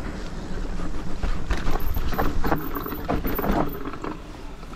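Mountain bike riding over a rough trail, with wind buffeting the microphone and a steady low rumble. A run of rattles and knocks from the bike over bumps comes from about one and a half to nearly four seconds in.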